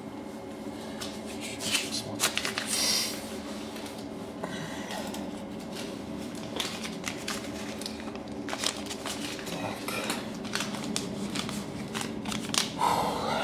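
Scattered light clicks and clinks from handling a railway ticket vending machine, over the machine's steady hum.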